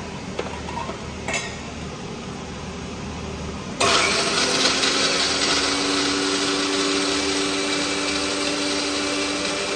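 Electric kitchen mixer grinder switched on about four seconds in and running steadily, with a high motor whine. Before it, a few light clicks.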